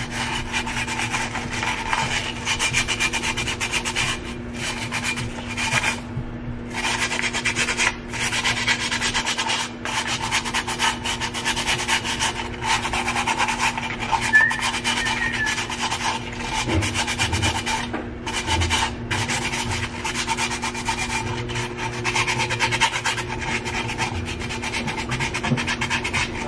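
Fine sandpaper rubbed back and forth in quick strokes over the chipped, dried rim of a drinking glass, smoothing the sharp edge. The rasping is continuous apart from a few brief pauses, the longest about six seconds in.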